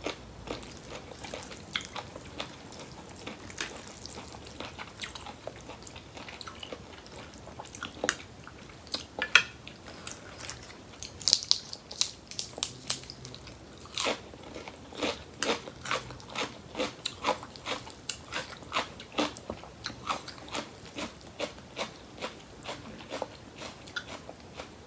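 Close-up chewing and biting of squid and spicy Thai rice-noodle papaya salad, with many short sharp crunches. The crunches are scattered at first, then come steadily at about two a second from about halfway through.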